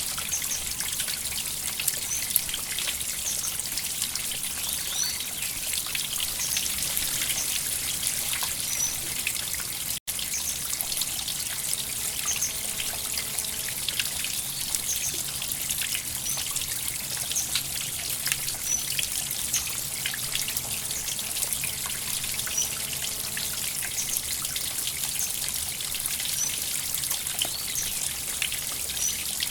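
River water flowing and trickling steadily over stones, with short high chirps every second or two. The audio drops out for a moment about ten seconds in.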